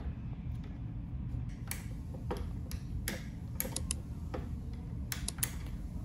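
Roller-lever limit switch clicking as its actuator arm is turned by hand: a series of irregular sharp clicks, the switch's contacts snapping closed and open to switch a lamp on and off.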